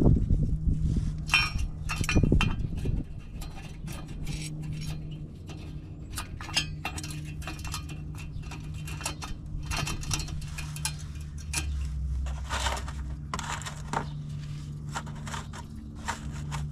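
Irregular light metallic clinks and scrapes of hand tools and exhaust pipe parts being handled, with two louder knocks near the start. A steady low hum runs underneath.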